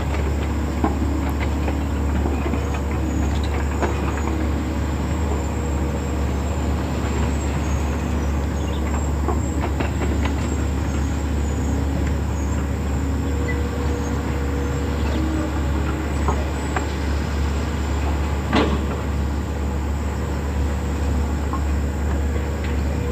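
Excavator's diesel engine running steadily with a deep, even rumble, with scattered metallic clicks and knocks from the machine working and one sharper knock near the end.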